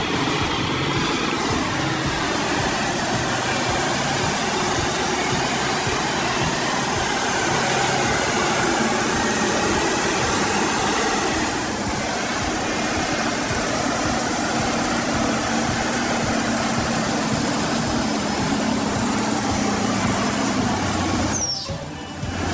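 Engine of heavy forestry machinery running steadily, with a short drop in level about a second before the end.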